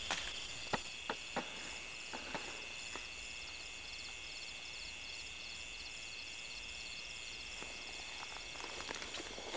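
A night insect chorus: a steady high trill with a fast pulsing chirp above it. A few short sharp snaps and rustles of dry grass stalks being handled come in the first couple of seconds and again near the end.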